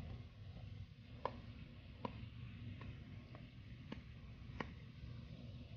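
Alaskan Malamute gnawing a large rawhide chew: about six sharp clicks and cracks of teeth on the hard rawhide, irregularly spaced half a second to a second apart, over a steady low hum.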